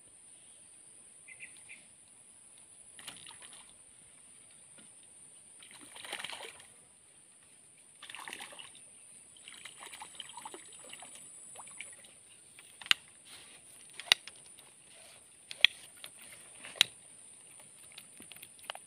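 Swamp water splashing and sloshing as a hooked climbing perch (betok) struggles at the surface, followed by four sharp clicks spaced a second or so apart in the last third.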